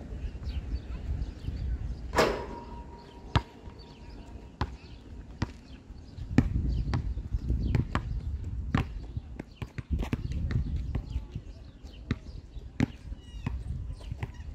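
Basketball bouncing, a dozen or so separate thuds, with one loud clang about two seconds in as the ball strikes the metal rim, which rings briefly.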